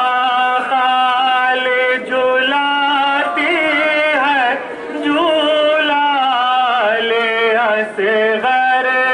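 A man's voice singing a slow mourning chant, a noha, in long held notes with wavering, sliding ornaments and short breaks between phrases.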